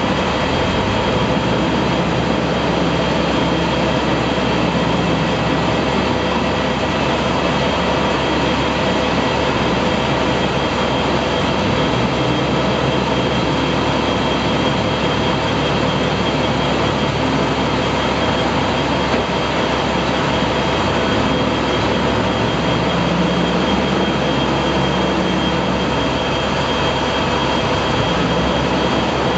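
Mercedes-Benz Unimog diesel engine running steadily under load, driving a grain-processing machine through its power take-off, the two giving one loud, unbroken machine noise with several steady tones in it.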